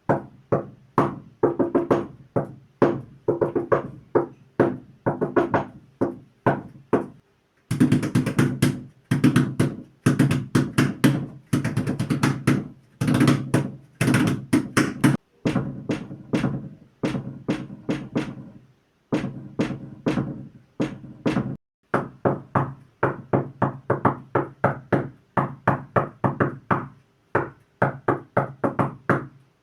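Quick rhythmic drumming: fast clusters of strokes with a pitched ring, played in short phrases that cut off abruptly several times.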